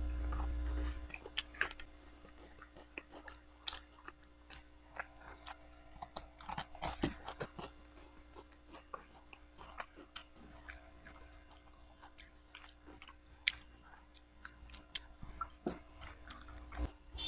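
Someone chewing and crunching food close to the microphone: irregular short crunches and mouth clicks with no speech.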